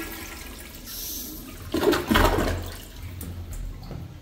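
Antique Standard Madera toilet flushing, water rushing and swirling down the bowl. It surges loudest about two seconds in, then dies down.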